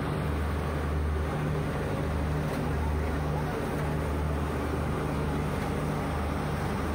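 A train's diesel engine running steadily: a low drone that throbs unevenly, under a wash of noise.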